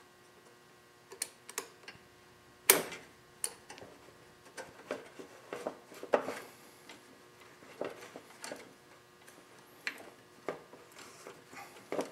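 Scattered small clicks and taps of pliers on metal and plastic parts as the fuel line is worked off a lawn mower carburetor, with one sharper knock about three seconds in.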